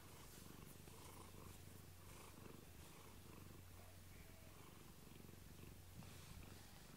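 Domestic tabby cat purring steadily and faintly, close up, while being stroked on the head.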